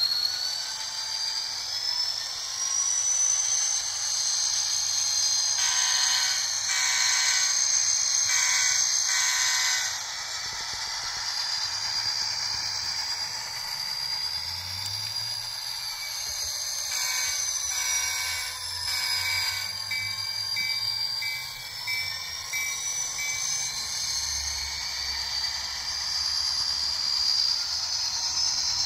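Bachmann N scale GP40 model diesel's onboard sound running as the locomotive pulls away: the diesel engine sound with a high whine that rises and falls. The horn sounds a series of blasts about six seconds in and again about seventeen seconds in.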